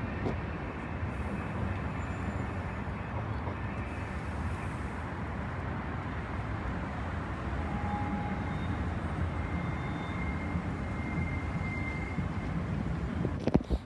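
Steady city street rumble of traffic, with a CAF Urbos 100 tram running off along the street track. A sharp click comes near the end.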